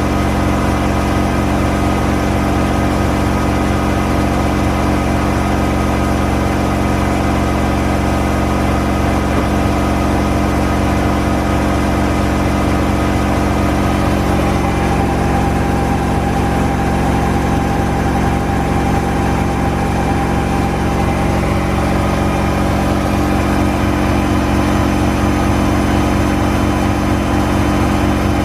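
Washing machine running with a steady motor hum made of several constant tones; a higher tone comes in about halfway and fades out later.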